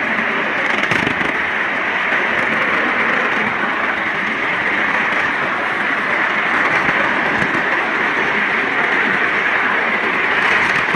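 Ride-on miniature steam locomotive and its train running along the track, heard from aboard as a steady, even rushing noise with no clear beat.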